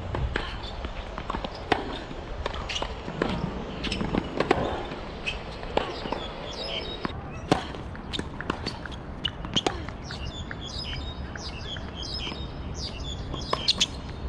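A tennis rally on a hard court: sharp pops of the ball off the strings and bouncing on the court, about one every second or so, with footsteps. Short high chirps come in the second half.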